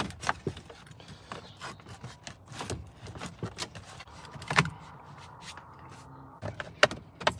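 Plastic steering-column trim covers being handled and fitted: scattered clicks, knocks and rubbing of plastic, with a sharper click about halfway through and two more near the end.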